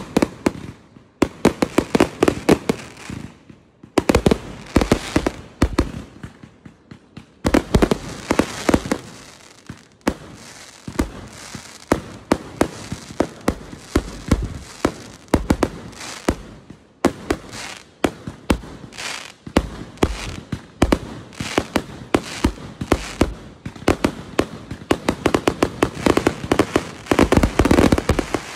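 Aerial fireworks bursting in rapid, continuous volleys: many sharp bangs a second with crackling, broken by a few brief lulls.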